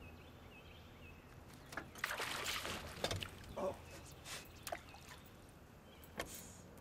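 A burst of splashing water about two seconds in as a hooked bass thrashes at the surface, followed by several knocks on the aluminium jon boat.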